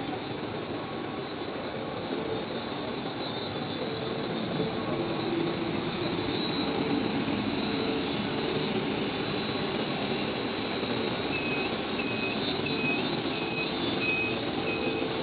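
Jumbo-roll PE stretch film production line running: a steady mechanical noise with a constant high whine. Near the end an electronic beeper starts, repeating about one and a half times a second.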